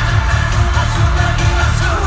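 Live K-pop concert music: a pop song with singing over a heavy, pulsing bass beat, loud and booming as heard from the audience.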